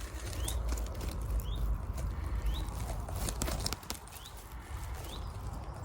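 A small bird repeatedly gives a short, high, rising call note, about once a second, a bird the recordist could not identify. Sharp clicks and rustles of bramble and phone handling come in between, over a low rumble.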